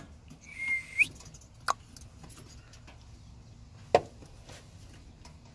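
A few sharp clicks and knocks from hands working the plastic high-voltage connectors on a 2014 Toyota Avalon hybrid battery pack. A short high squeak about half a second in rises at its end.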